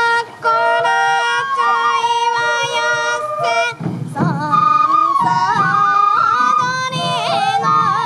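Traditional sansa odori music: a bamboo flute playing a held melody, joined about four seconds in by a singer's wavering, ornamented folk-song voice, over taiko drum beats.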